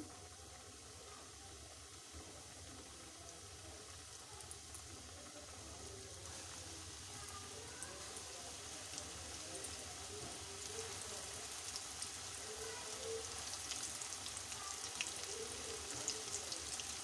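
Flour-coated chicken wings deep-frying in hot oil in a wok: a steady sizzle with scattered small crackles, slowly getting louder as more pieces go into the oil.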